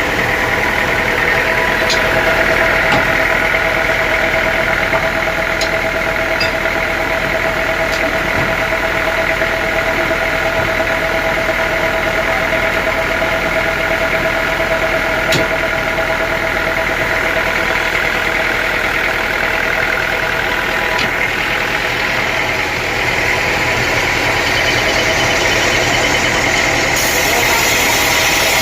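Sawmill machinery running steadily with a constant whine, plus a few faint ticks. There is a brief dip in level a little after three-quarters of the way through, and then the upper whine changes slightly.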